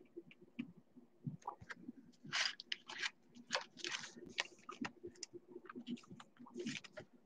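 Faint, irregular crinkling and scraping of clear plastic as a trading card is handled and slipped into a rigid plastic card holder.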